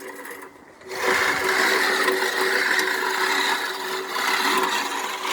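Manual reel push mower rolling and cutting grass, its spinning blades making a steady whirr that starts about a second in.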